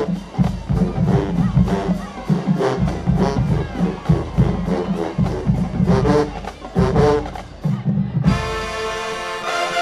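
Marching band playing: drums hit a driving rhythm under brass. Near the end the drumming stops and a steady chord rings out.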